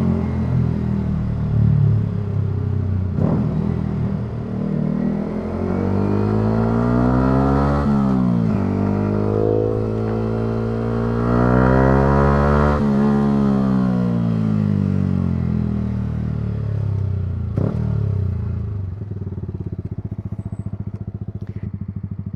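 Yamaha R125's single-cylinder four-stroke engine pulling hard, its pitch rising. It drops sharply about eight seconds in, as at an upshift, and climbs again. Then it falls slowly as the throttle closes, and settles lower and steadier near the end.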